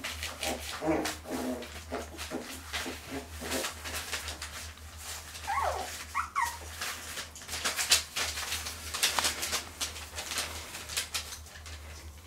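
Cotton de Tulear puppies: one lapping at a bowl with quick repeated clicks and little grunts, and a puppy whimpering with two short, high, falling whines about six seconds in.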